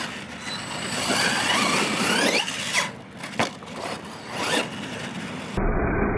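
Losi LMT radio-controlled monster truck's brushless electric motor whining in short rising glides as the throttle is applied on 3S power, with a few sharp knocks in the middle. Near the end the sound cuts abruptly to a duller, muffled take of the motor winding up in pitch.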